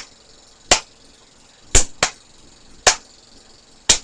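A simple home-made percussion beat of sharp single hits, about one a second, with one quick double hit in the middle.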